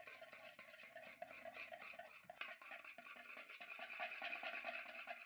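Small wire whisk stirring a thick chocolate mixture of cocoa powder, honey and coconut oil in a bowl: faint, quick, irregular scraping and swishing, a little louder in the second half as the mixture thickens.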